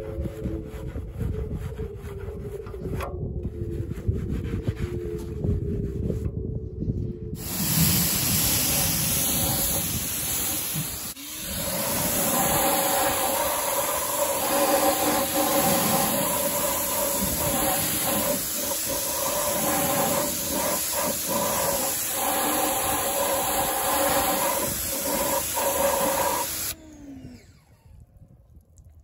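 A bristle wheel brush scrubs inside a foam-covered exhaust tip. About seven seconds in, a Ryobi 1,600 PSI electric pressure washer starts: a steady motor whine under the loud hiss of the water jet, rinsing the foam off. It cuts off suddenly near the end, its motor winding down.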